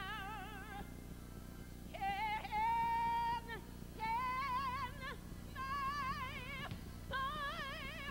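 A woman singing a gospel solo through a microphone in five short phrases of high held notes, most with a wide vibrato, with brief breaths between them. The loudest is a long steady note about two seconds in.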